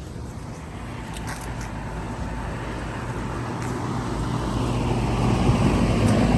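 A motor vehicle running and getting steadily louder as it comes closer, over a steady low mechanical hum.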